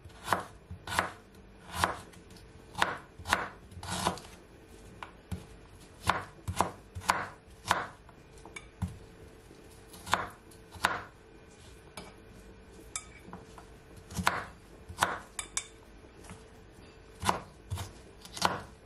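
Kitchen knife slicing fresh ginger root on a wooden cutting board: sharp knocks of the blade on the board, in irregular runs of one or two a second with short pauses between.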